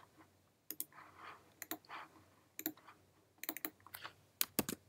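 Computer keyboard keys and clicks in short, irregular runs, a few strokes at a time, with two sharper clicks near the end.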